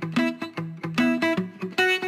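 Instrumental background music of plucked notes, several a second, each struck sharply and then fading.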